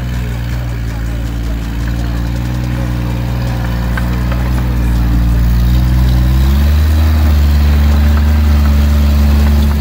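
Toyota Land Cruiser HZJ77's 4.2-litre straight-six diesel running steadily at low revs as it crawls over the trail. It changes note about two-thirds of the way in and grows gradually louder as it nears.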